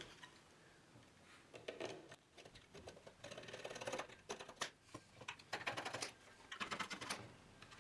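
Jigsaw blade in a hand-held holder sawing through thin HDPE tabs: faint, quick rasping strokes in several short runs, starting a couple of seconds in.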